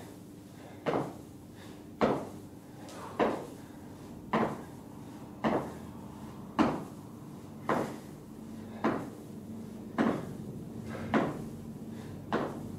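Feet in trainers landing on a rubber gym floor during squat jumps: a thud with a short scuff about once every 1.1 seconds, eleven landings at a steady pace.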